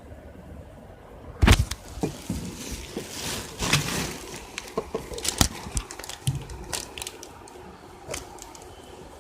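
Irregular plastic clicks, knocks and rustling from handling a Moto C smartphone and its parts. One sharp click comes about a second and a half in.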